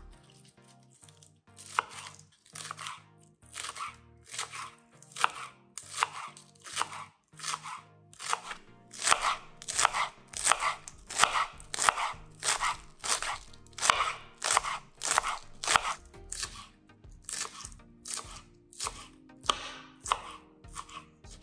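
Chef's knife slicing spring onions on a bamboo cutting board. Crisp cuts come in a steady rhythm of about two a second, sparse at first, then loudest and most regular in the middle.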